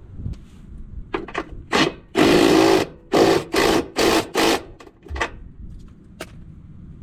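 A power tool run in short bursts, driving a lock nut onto a travel trailer's body-to-frame bolt. There is one run of just under a second, then four quick pulses in a row, with a few clicks before and after.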